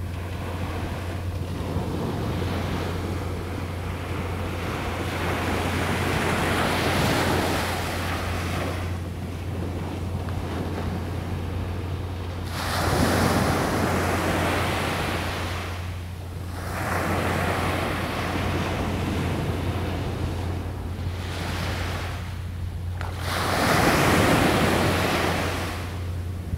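Small surf breaking and washing up on a beach, swelling and fading in four surges a few seconds apart, over a steady low drone.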